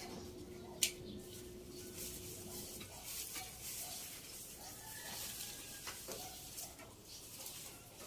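Leafy branches of a bilimbi (kamias) tree rustling and swishing as they are pulled and handled, with one sharp click about a second in.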